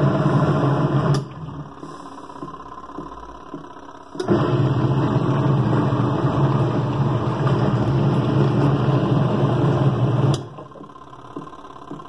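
Praxis Petit 1.2 kg mini washing machine's motor running a wash cycle, a little noisy, in alternating spells: it hums until about a second in, pauses for about three seconds, then runs again for about six seconds before stopping near the end, as the wash rotation reverses direction.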